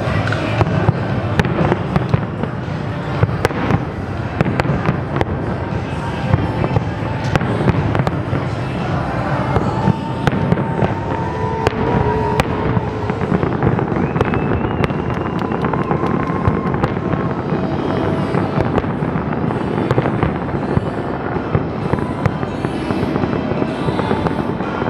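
Large aerial fireworks display going off without a break: a dense stream of shell bursts, bangs and crackling, many sharp reports a second over a continuous rumble.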